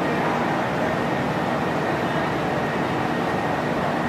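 Steady mechanical background noise of a workshop: a continuous rumble and hiss with a faint steady hum and no distinct events.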